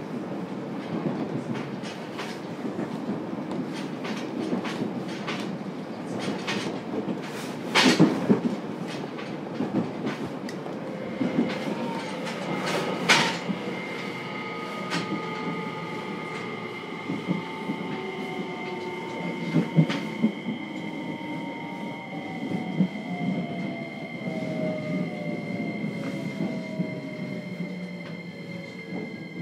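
JR Kyushu 303 series electric train heard from inside its motor car, slowing into a station. The wheels clatter over rail joints with a couple of sharp knocks in the first half. From about halfway, the VVVF inverter whine sets in as a steady high tone, and the traction-motor tones fall in pitch as the train brakes.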